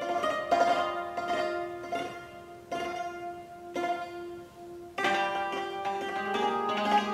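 Cimbalom (hammered dulcimer) strings plucked by fingers rather than struck with hammers, in a slow C minor improvisation. Single notes sound about once a second and ring over one another, one note recurring. About five seconds in, a louder, fuller group of notes enters with lower strings.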